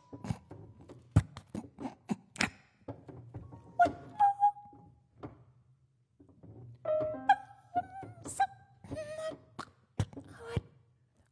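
Free-improvised music for voice and piano: sparse, scattered knocks and clicks with short wavering vocal tones, broken by a brief silence about halfway through.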